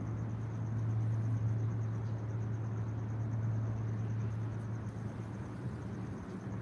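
Outdoor ambience: a steady low hum that eases off near the end, over a faint, even, high-pitched pulsing trill.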